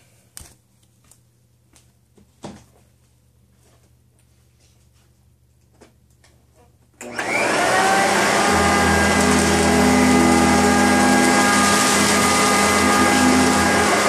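A few soft knocks, then about halfway through a Sanitaire upright vacuum cleaner is switched on. Its motor spins up quickly to a loud, steady whine carrying several fixed tones, with a low hum underneath.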